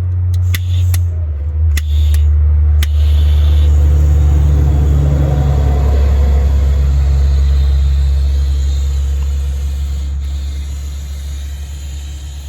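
Small handheld butane torch: a few sharp igniter clicks in the first three seconds, then the flame running with a loud, steady low roar that eases slightly toward the end. It is heating a solder-sleeve wire connector.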